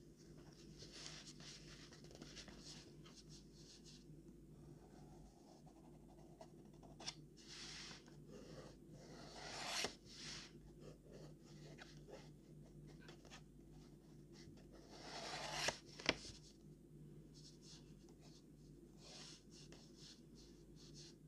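Faint scratching of drawing strokes on sketchbook paper. Twice the paper rustles, building louder each time, and a sharp click follows the second rustle.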